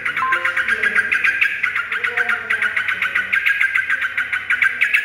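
Yellow-vented bulbul chirping in a fast, even run of short notes, with wing flutters.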